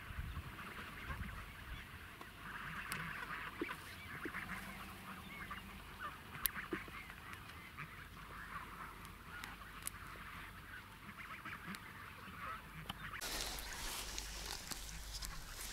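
A steady chorus of many short, overlapping animal calls, heard from a distance. About thirteen seconds in, a louder rush of noise comes in over it.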